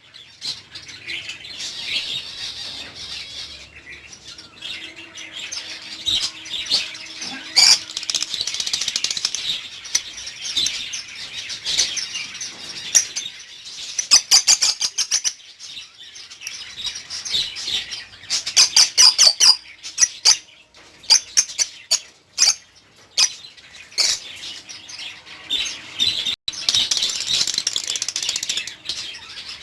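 Lovebirds chirping and chattering continuously in high, busy calls, broken several times by quick runs of sharp clicks.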